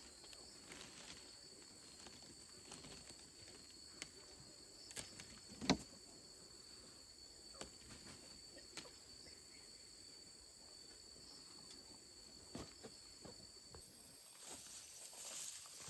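Faint outdoor ambience: a steady high-pitched insect drone with scattered small clicks and knocks, one louder knock a little past a third of the way in.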